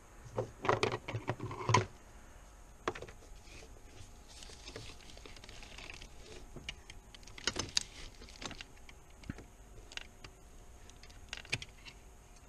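Light clicks and clatter of hands working plastic connectors, clips and lines loose under a car's hood. There is a dense run of clicks in the first couple of seconds, then scattered clicks, with another short cluster around the middle and a few near the end.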